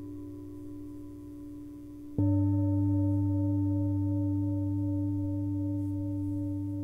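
Himalayan singing bowl struck about two seconds in, over the fading ring of an earlier strike. It rings on with a deep low hum and several higher tones, one of them wavering in pulses, slowly dying away.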